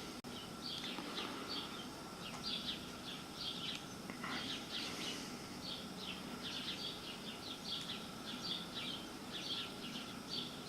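Birds chirping: short, high chirps repeating several times a second, over a faint steady hum.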